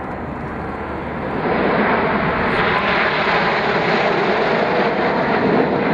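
A formation of BAe Hawk jet trainers flying past, their single Rolls-Royce Adour turbofans making a steady rushing jet noise that swells about a second and a half in and then holds loud.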